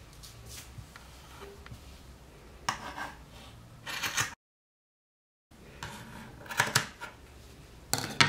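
Scissors snipping through the yarn fringe of a crocheted scarf in a few short bursts, with some handling noise. The sound drops to dead silence for about a second midway.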